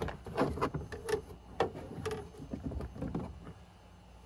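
Plastic interior door trim panel of a 2010 Toyota Tundra being handled and lifted free of the door: a string of light plastic knocks and clicks with rustling, dying down near the end.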